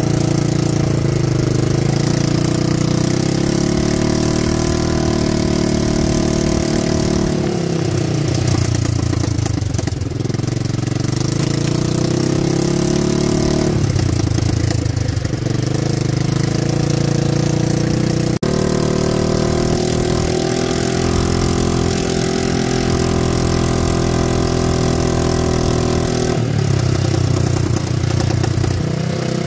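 ATV engine running as it drives along a gravel trail, its pitch falling and rising with the throttle several times, under a steady hiss.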